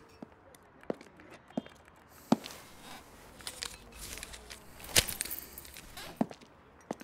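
Scattered sharp taps and knocks, about six in all, the loudest about five seconds in, with soft rustling between them over a faint low rumble.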